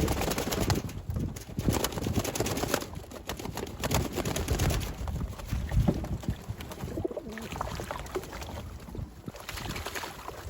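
Racing pigeons bathing: an irregular run of water splashes and wing flaps, mixed with pigeon calls.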